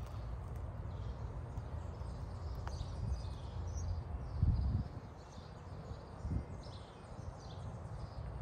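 Outdoor garden ambience: faint birdsong chirping on and off over a steady low rumble, with two soft thumps about four and a half and six and a half seconds in.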